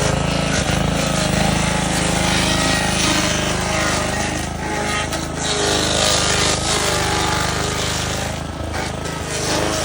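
Stump grinder running: its engine held under load, the pitch wavering slightly as the cutter wheel grinds into the wood of the stump.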